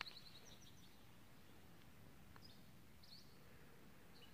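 Faint bird chirps and short calls over near-quiet outdoor stillness: a run of chirps at the start, then single calls about two and a half and three seconds in. A brief sharp click right at the start.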